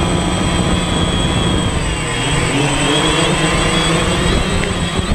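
DJI Phantom quadcopter's electric motors and propellers buzzing steadily, heard through the GoPro mounted on it, over a rumble of wind and prop wash on the microphone. The hum shifts lower in pitch about two seconds in.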